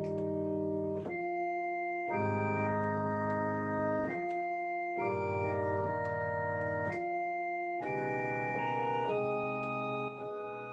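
Electronic keyboard with an organ voice playing slow, sustained chords. Each chord holds without fading and changes every second or two. The deep bass notes drop out briefly three times.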